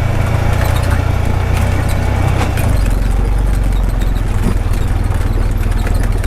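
Honda Pioneer 520 side-by-side's single-cylinder engine running steadily while driving, with a low rumble and frequent short rattles and knocks from the machine.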